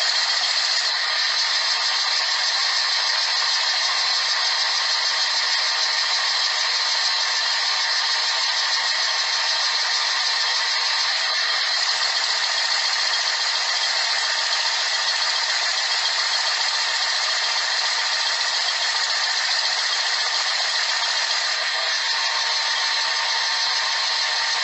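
Dishwasher running its wash cycle, heard from inside the tub: a steady hiss of spraying water that holds constant throughout.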